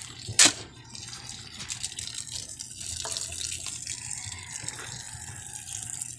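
A single sharp knock about half a second in, then steady running, splashing water.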